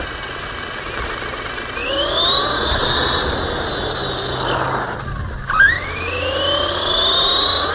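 RC car's motor and drivetrain whining, heard from on board: the whine rises in pitch as the car speeds up about two seconds in, falls away briefly after five seconds with a short knock, then climbs again near the end, over a steady rumble of tyres on pavement.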